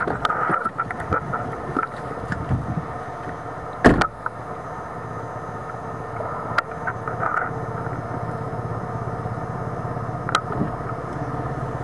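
Car engine idling steadily, with a sharp knock about four seconds in and a few light clicks.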